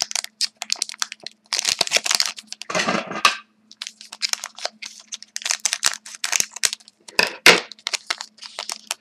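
A pack of hockey cards being torn open and handled, its wrapper crinkling and crackling in irregular bursts.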